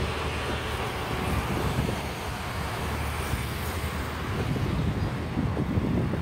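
Wind buffeting the microphone in uneven gusts, over a steady distant rumble.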